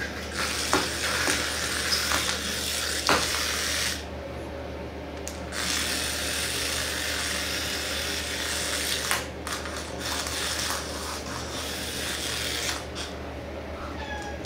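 Small electric motor of a battery-powered toy mouse whirring, cutting out for a moment about four seconds in and again briefly about nine seconds in, with a few light knocks in the first three seconds.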